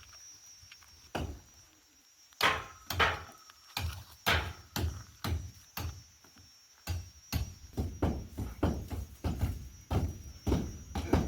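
A series of blunt, heavy strikes from a hand tool chopping or pounding: one knock, then blows about twice a second, a short pause, then quicker blows about three a second.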